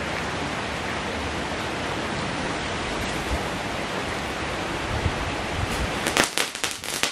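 Heavy rain falling on wet pavement and puddles, a steady hiss. About six seconds in, four crackling firecrackers lit together begin to go off in a quick run of sharp cracks.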